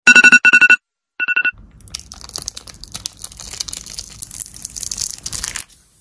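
A quick run of loud electronic beeps, then clear plastic protective film being peeled off a flat black panel, a crackling, crinkling hiss for about four seconds that cuts off near the end.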